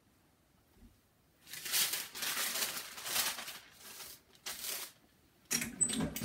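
Parchment paper crinkling and rustling in bursts, starting about a second and a half in, as it is handled and laid over the transfer on a heat press. Near the end the heat press's upper platen is brought down.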